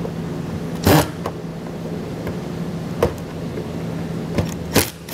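Cordless drill-driver with a T15 Torx bit running steadily, backing out the screws that hold a car's taillight. A few sharp clicks and knocks cut through it, the loudest about a second in.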